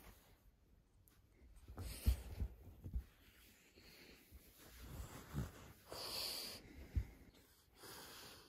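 A French bulldog's quiet, wheezy, snorting breaths: several separate breaths about a second apart, with a few soft thumps.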